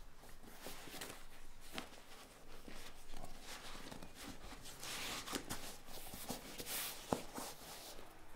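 Hands working a dark upholstery seat cover over its padding: rustling and rubbing of the material, with a few small knocks and one sharper click about seven seconds in.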